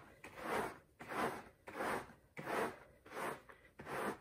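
Rubber dish glove rubbed back and forth over a nubbly fabric mat to gather cat hair: six rubbing strokes, about one and a half a second.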